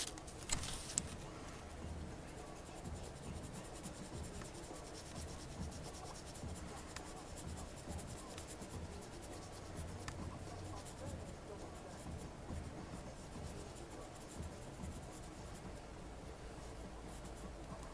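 Pencil scratching faintly and steadily as it draws around a cut acetate stencil, after a few light clicks in the first second.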